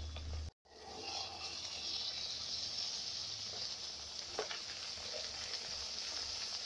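Spinach pooris deep-frying in hot oil, a steady sizzle. The sound cuts out completely for a moment about half a second in, then the sizzle resumes.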